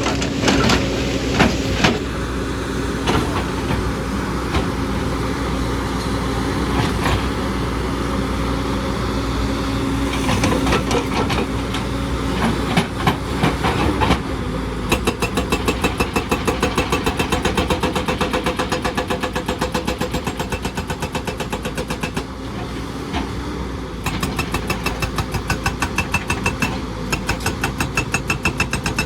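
JCB excavator's diesel engine running under load, with scattered knocks and scrapes of rock in the first half. About halfway through a fast, even knocking starts and keeps going.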